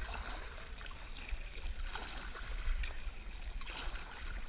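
Paddle strokes dipping and splashing in the water around a small paddled boat, over a steady low rumble.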